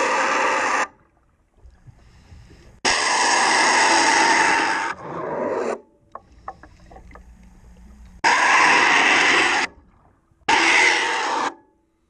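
Scuba diver's regulator exhaust bubbles underwater: repeated loud bubbling bursts of about one to two seconds each, starting and stopping sharply with each breath out, with faint clicks and scrapes in the quieter gaps between.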